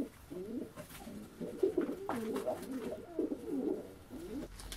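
Domestic pigeons cooing: low, wavering coos from several birds overlapping one another, with a couple of light knocks.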